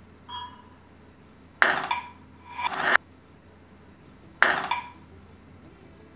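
Glass jar clinking and knocking against the blender jug as oats are tipped in: a faint clink at the start, then three loud knocks, each with a short ringing tone, about a second and a half in, near three seconds, and about four and a half seconds in.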